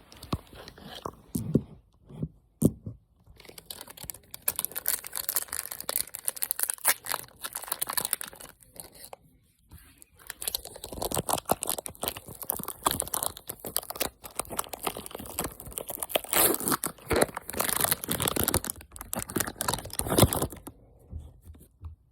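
Foil wrapper of a Pokémon trading card booster pack being torn open and crinkled by hand: a long run of dense crackling and tearing, broken by a couple of short pauses.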